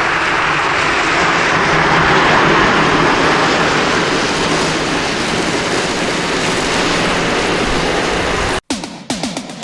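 Loud, steady drag-racing engine noise that cuts off abruptly near the end, followed by music starting.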